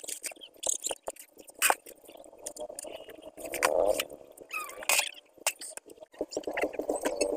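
Thin plastic shopping bags rustling and crinkling in quick, irregular crackles as goods are packed into them.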